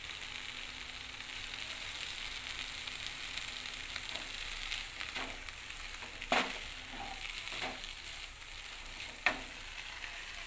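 Moringa leaves sizzling as they are lightly sautéed in oil with onion and tomato, stirred with a wooden spatula. A few sharp knocks and scrapes of the spatula against the pan stand out, the loudest about six seconds in and another just past nine seconds.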